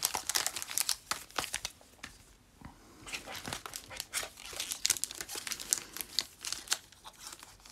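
Foil Pokémon booster pack wrappers crinkling and rustling as a hand gathers and slides them across the table, with a short quieter pause about two seconds in.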